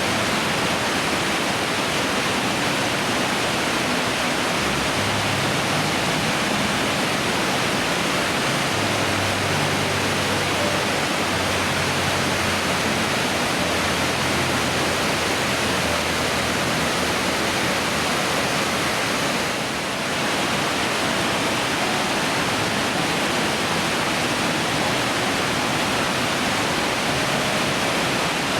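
Steady rushing roar of Fukuroda Falls, a large four-tiered waterfall, with water pouring down the rock steps; it dips briefly about twenty seconds in.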